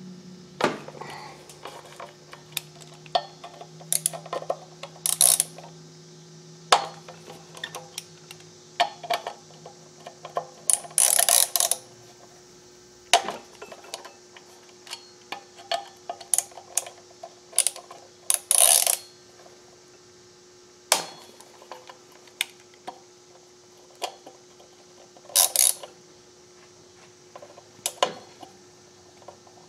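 Hand ratchet turning a hex-bit socket on an extension to loosen the Allen bolts that hold a motorcycle's rear brake disc to the wheel hub. The pawl clicks in irregular short runs, with scattered clinks of metal tools.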